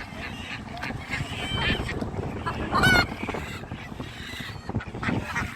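Geese honking among other poultry, with a few short calls, the loudest about three seconds in.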